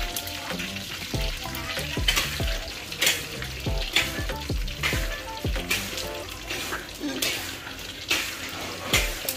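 Breaded frog pieces deep-frying in hot oil: a steady sizzle with short pops and spatters about once a second.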